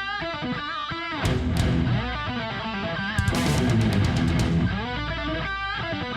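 Outro music: an electric guitar rock track with drums and a steady beat.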